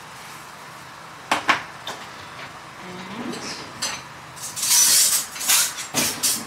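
Cutlery and dishes clinking on a kitchen counter: a few sharp clicks, then a louder rattling clatter near the end.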